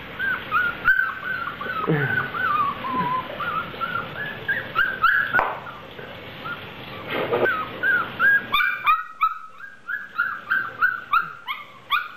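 Mongrel puppy whining and whimpering: a string of short, high, sliding whines that comes faster, about three or four a second, in the second half.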